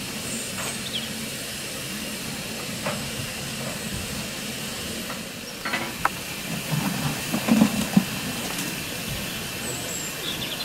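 Narrow-gauge steam locomotive standing and letting off steam, a steady hiss throughout, with a few metallic clanks and knocks about six to eight seconds in.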